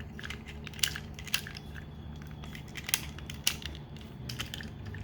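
Plastic parts of a transforming toy robot figure being handled and moved: scattered sharp clicks and crackles, four of them louder than the rest, over a steady low hum.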